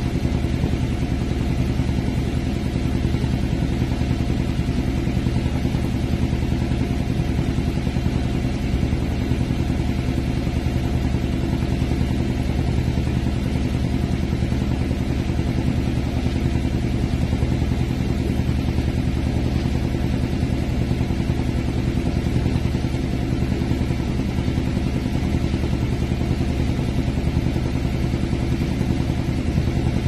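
Boat engine running steadily at one low, even pitch.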